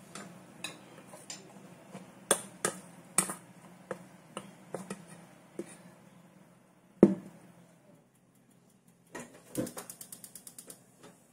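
A spoon clinking and scraping against a metal mixing bowl as grated potato and egg are stirred, with a single loud knock about seven seconds in. Near the end a gas stove's burner igniter clicks rapidly, about ten clicks a second for a second and a half, as the burner is lit.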